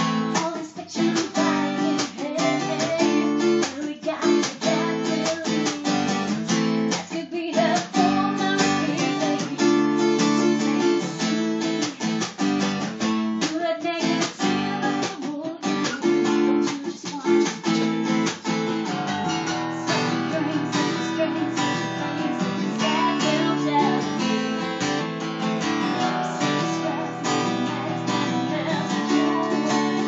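Live acoustic guitar strummed steadily in a rock-pop song, with a woman singing the lead vocal, recorded raw on a tablet's microphone.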